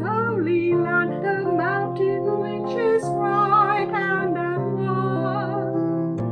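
A woman cantor singing a verse of the responsorial psalm with a vibrato, over sustained keyboard chords.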